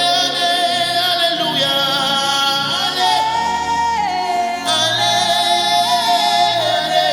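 Gospel worship music: a singer holds long wordless notes, sliding up and down between them, over a sustained musical backing.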